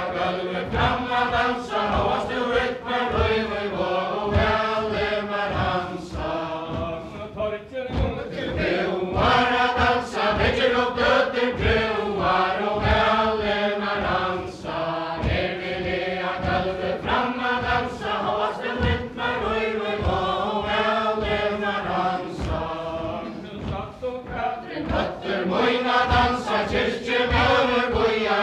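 A mixed group of dancers singing a Faroese kvæði ballad in unison, unaccompanied, in a steady chant-like melody. Under the voices runs a steady beat of dance steps thudding on a wooden floor.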